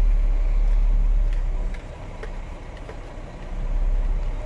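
Vehicle engine running with a low rumble, heard from inside the cab as it drives slowly over a dirt yard. The rumble eases off about two seconds in and builds again near the end. A few faint clicks come through it.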